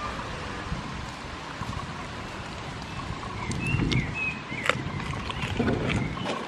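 Steady wind rushing on the microphone. In the second half, goats nibble treats from a hand, with a few sharp clicks and low handling bumps, and a few short high chirps about halfway through.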